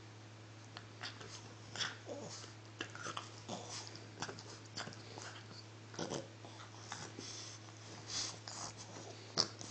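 French bulldog puppy chewing and gnawing a chew toy: soft, irregular clicks and rustles of teeth and mouth on the toy.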